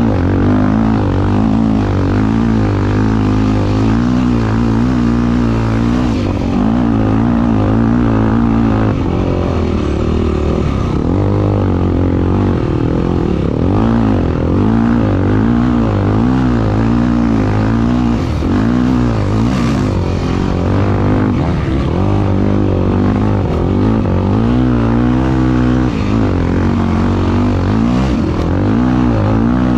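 A racing engine running hard, its pitch rising and falling again and again as the throttle opens and closes and the gears change.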